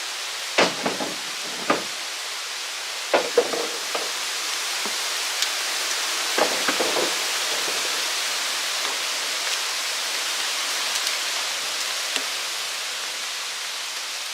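Chicken hearts sizzling in a pan over a wood fire: a steady hiss that swells through the middle. There are a few sharp knocks in the first half.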